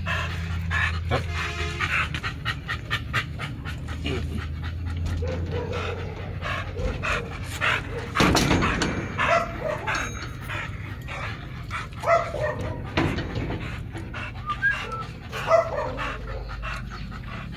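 American bully dog panting quickly and steadily, close to the microphone.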